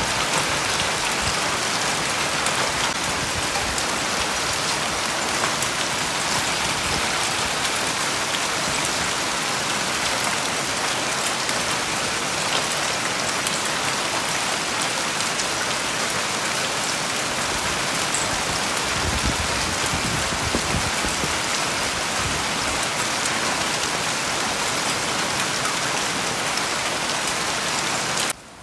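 Hail falling hard on a lawn and garden, a dense steady patter with scattered sharp ticks of individual stones, cutting off abruptly near the end.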